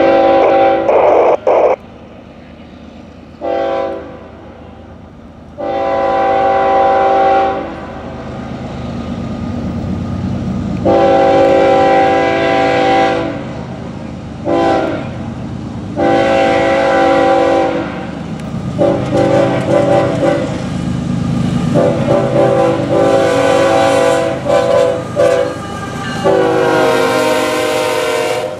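Nathan K5HLL five-chime air horn on a CSX ES44AH diesel locomotive blowing a long string of blasts as it passes: about nine, some long, some short, several broken into quick stutters. Under the horn the rumble of the passing locomotives and rail cars builds up about a third of the way in.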